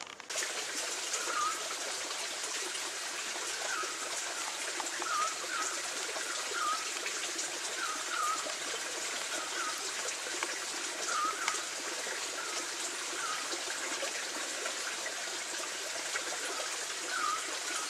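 Steady rush of running stream water, with a short chirping call repeated every second or so above it.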